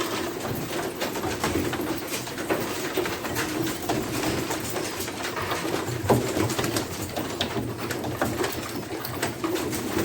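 Domestic pigeons cooing steadily in a loft, with many scattered sharp taps and clicks.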